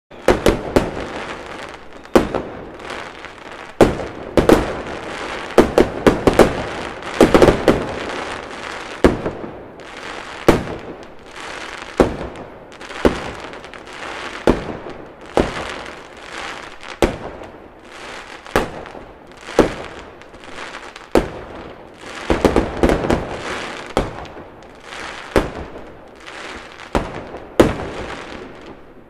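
Fireworks going off in a long volley: sharp bangs about one or two a second over a continuous crackling hiss, thickest in two runs about five seconds in and again past twenty seconds.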